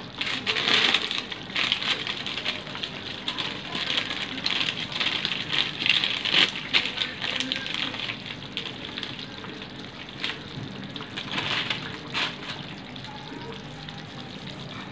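Thick chicken curry sizzling and spluttering in its own oil in a pan on the stove, crackling irregularly and busier in the first half. The water has cooked off and the oil has risen to the top, the sign that the chicken is done.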